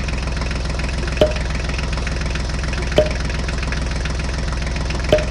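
Steady idling tractor-engine sound, an added sound effect for the hand-pushed toy tractor, with three sharp clicks about two seconds apart.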